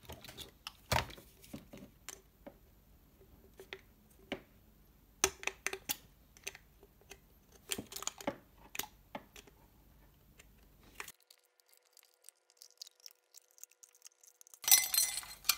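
Snap-off utility knife blade scoring and cutting through the thin aluminium bottom of a drink can: scattered small clicks and short scrapes, with a louder stretch of scraping near the end.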